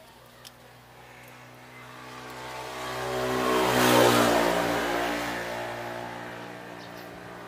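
A motor vehicle passing by: its engine grows louder over about three seconds, peaks near the middle, then fades away. There is a small click about half a second in.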